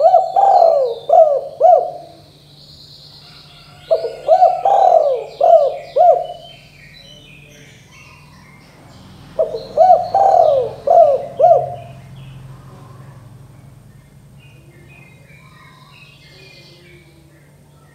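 Spotted dove (tekukur) cooing: three phrases of four or five notes each, spaced about five seconds apart, with faint chirps of other small birds in the background.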